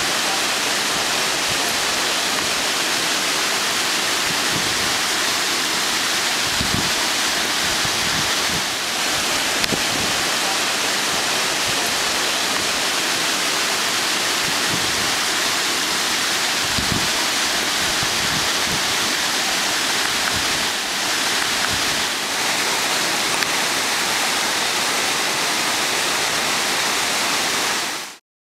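Floodwater rushing in a steady, loud torrent, cutting off abruptly near the end.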